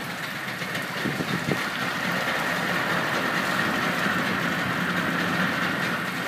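Mercury-built 40 hp two-cylinder two-stroke outboard motor running steadily in reverse gear, shortly after a cold start.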